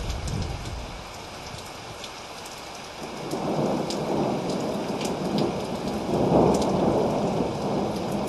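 Thunderstorm sound effect: steady rain hiss with crackles, and rolling thunder. One rumble dies away at the start, and two more swell up about three and six seconds in.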